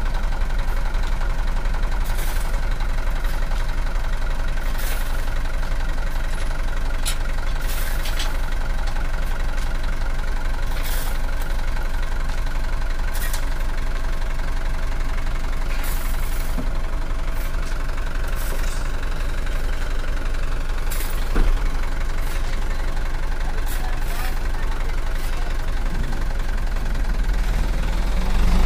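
Diesel dump truck engine idling steadily, with a single sharp knock about three-quarters of the way through. The engine sound picks up right at the end.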